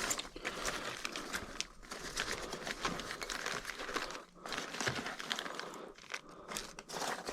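Packaging being handled while a parcel is unpacked: an irregular crinkling and rustling with many small crackles.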